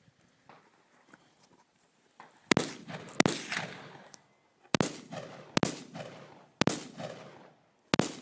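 Six gunshots fired in a string, roughly one every second, each followed by a short echoing tail, starting about two and a half seconds in.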